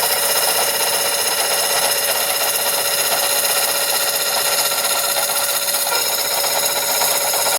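Lathe tool-post cutting attachment running steadily in metal: a continuous rasping cut with a high ringing whine over it.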